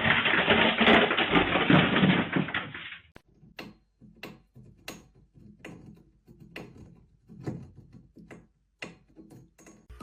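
A loud rustling or scraping noise for about three seconds, then a series of sharp knocks or taps, roughly one or two a second.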